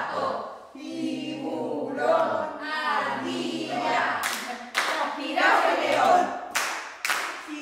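A group of women's voices singing together, with hand clapping joining in about four seconds in and carrying on over the singing.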